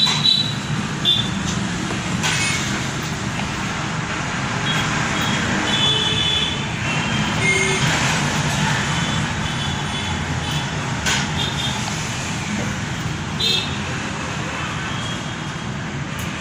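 Steady road-traffic noise with brief, high-pitched vehicle-horn toots every few seconds.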